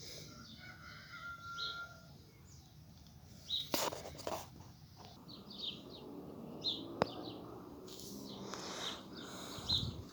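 Birds chirping in short repeated calls, with a few knocks about four seconds in and a single sharp click about seven seconds in.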